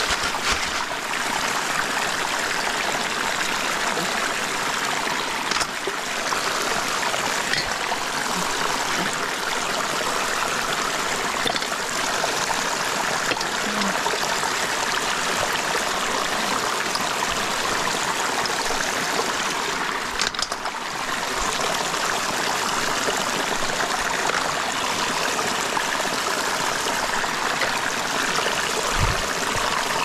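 Water flowing steadily in a canal, a continuous rushing noise, with a few faint knocks now and then.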